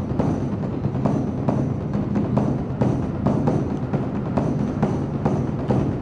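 Beopgo, the large Korean Buddhist dharma drum, struck in a continuous rhythm of about two to three strokes a second, with a deep resonance that carries on between the strokes.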